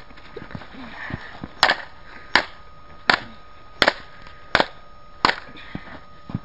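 Hammer repeatedly striking an atomic clock's case and cracked face, about seven sharp blows at an even pace of one every three-quarters of a second, starting about a second and a half in.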